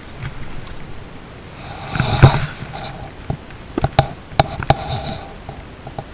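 Close handling noise of a plastic fly box: a rustle with one sharp click about two seconds in, then a run of sharper clicks a second or two later.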